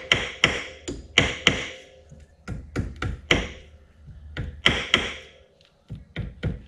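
Hammer tapping a new rear differential axle seal into its bore on a Yamaha Grizzly 700 ATV, starting it square by hand without a seal driver. A run of light, irregular taps, about three a second, with a short pause about five and a half seconds in.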